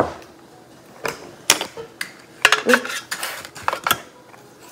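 Kitchen utensils clinking and knocking while brown sugar is measured out: about half a dozen short, sharp clicks, a couple of them in quick pairs.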